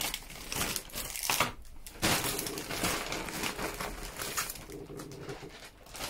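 Plastic packaging crinkling and rustling as diamond painting kits in clear plastic bags are handled, with a short lull a little before two seconds in.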